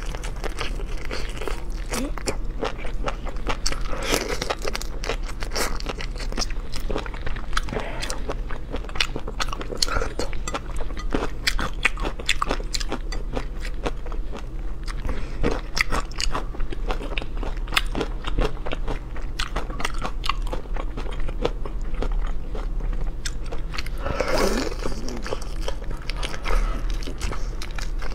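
Person eating seafood: continual biting, crunching and chewing with many quick crisp cracks, over a low steady hum.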